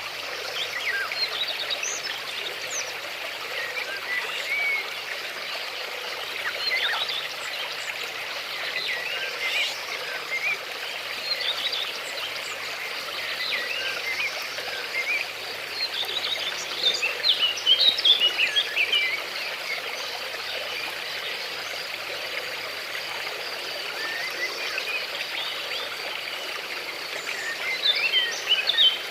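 Steady flowing water of a stream, with many birds chirping and calling over it; the birdsong is busiest about two thirds of the way through and again near the end.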